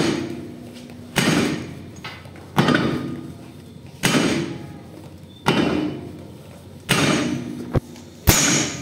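Heavy hammer blows on the steel parts of a tank road wheel, six evenly paced strikes about a second and a half apart, each ringing briefly.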